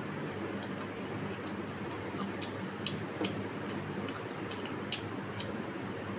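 Close-up chewing and mouth sounds of eating mutton curry and rice by hand: many short, sharp, irregular wet clicks and smacks over a steady low hum.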